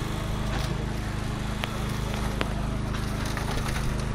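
Small engine running steadily at constant speed, as a hydraulic rescue-tool power unit does while powering the extrication tools. A few short, sharp metallic clicks sound over it about one and a half and two and a half seconds in.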